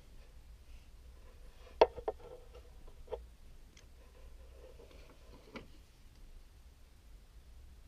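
Plastic parts of a Transformers action figure clicking and snapping as they are moved into place during its transformation: four sharp clicks, the loudest about two seconds in, with fainter handling taps between.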